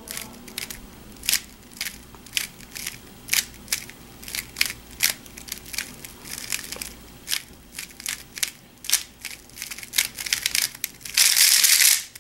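Aolong v2 3x3 speed cube's plastic layers clicking as they are turned move by move, about two clicks a second, then a loud rapid clatter of fast turning near the end.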